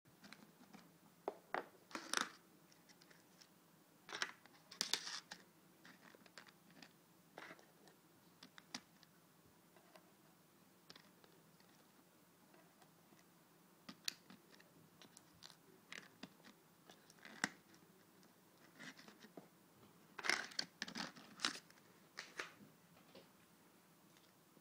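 A clear plastic tray of acrylic press-on nails being handled: faint, irregular crinkles and clicks as the nails are picked out and set down on the table, in a few busier clusters.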